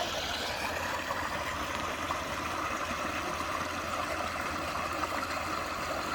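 Creek water flowing, a steady rushing and trickling.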